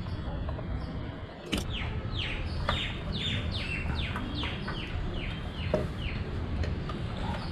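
A bird calling in a run of quick downward-sliding notes, a little over two a second, over a low background rumble, with a sharp click about one and a half seconds in.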